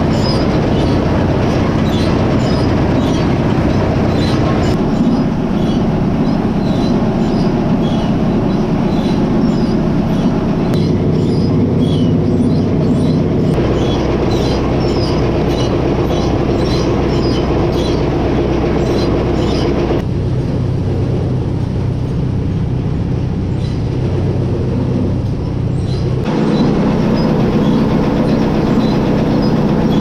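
Farm harvest machinery running steadily: an engine hum with a continual clatter and rattle of working parts, its sound shifting abruptly several times.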